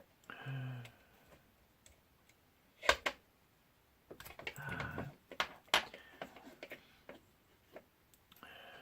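Sharp clicks and small handling noises from the plastic parts of a DJI Phantom 3 Pro gimbal being worked by hand, with two loud clicks about three seconds in and a run of clicks and rustling a second later. A short low hum is heard near the start.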